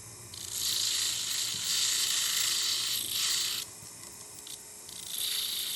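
Rotary tool bur grinding and carving the metal of a jewelry piece, a high-pitched grinding that runs for about three seconds, drops off, and starts again near the end.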